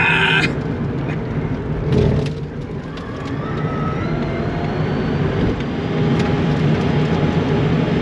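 Rimac Nevera electric hypercar at speed, heard from inside the cabin: a steady roar of tyre, road and wind noise, briefly louder about two seconds in. A faint electric-motor whine rises in pitch from about three seconds in as the car accelerates.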